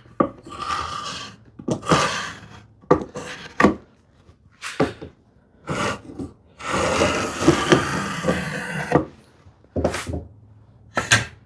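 Vintage marking gauge's hardened steel pin scratching a line along a poplar board in a series of strokes, the longest a few seconds long about two-thirds of the way in.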